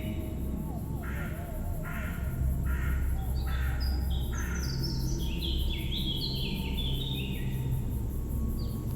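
Birds calling: five harsh, caw-like calls about two-thirds of a second apart, then a run of quick descending chirped notes from another bird, over a steady low rumble.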